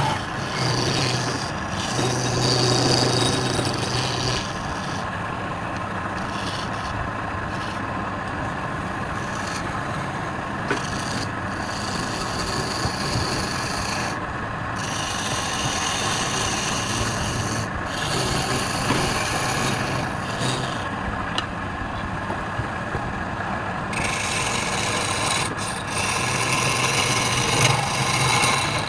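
Wood lathe running with a turning tool scraping against the spinning wood: a steady motor hum under a rasping scrape that comes and goes in passes of a few seconds.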